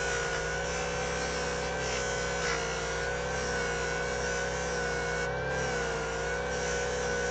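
Parkside 140 W bench disc sander's motor running with a steady whine that wavers slightly in pitch as a piece of epoxy resin is held against its 7000-grit disc. The fine grit is only polishing the resin, not cutting it.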